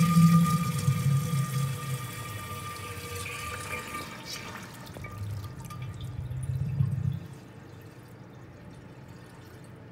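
American Standard Lynbrook urinal flushing from its manual flush valve: water rushing through the bowl with a steady high whistling tone, loudest at first, tapering off and cutting out about seven seconds in.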